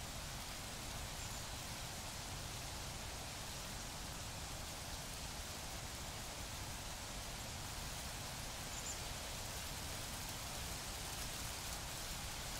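A steady, even hiss of noise with no distinct events.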